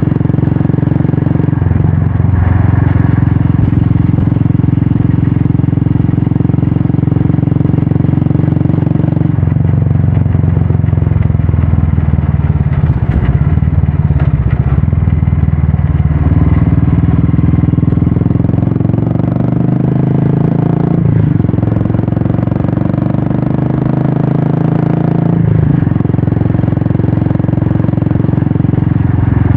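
Royal Enfield Classic 350 single-cylinder engine running through a Red Rooster aftermarket exhaust while the motorcycle is ridden. The engine note changes pitch several times, dropping and picking up again.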